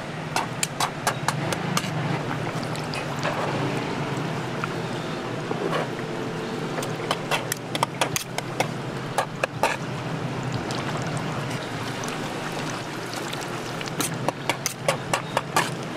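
Metal spatula spreading and scraping wet fish paste across a plastic cutting board and rolling it around a slice of ham: runs of quick sharp taps and wet smears, near the start, in the middle and near the end, over a steady low background noise.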